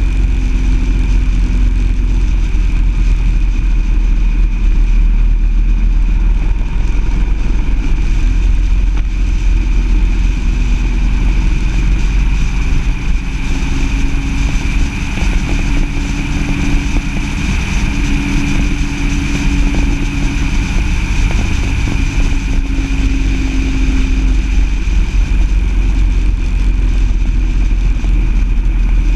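Vehicle engine running at speed under heavy wind and road rumble on an outside-mounted camera, the engine note rising and falling with the throttle.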